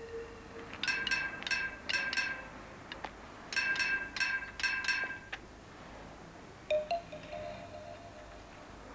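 Drumsticks struck along the bars of an iron railing: two quick runs of ringing metallic pings, five or six strikes each, all at the same chiming pitch. A single sharp knock comes a little later.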